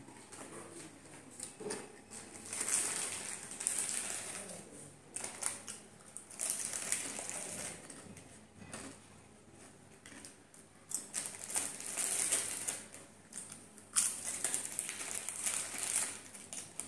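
Potato chips crunching as they are chewed, together with the crinkle of a plastic chip packet being handled, in crackly bursts that come and go every second or two.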